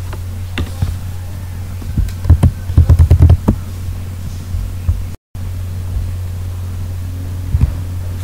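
Steady low electrical hum under a quick run of clicks and knocks about two to three and a half seconds in, from the computer mouse being clicked and handled on the desk while the screen recorder is worked. A few single clicks come before and after. The sound drops out for an instant about five seconds in, where the recording is cut.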